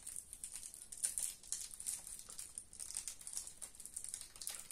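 Faint, irregular scratching and clicking of a prying tool working at the seam of an iPod Video's case.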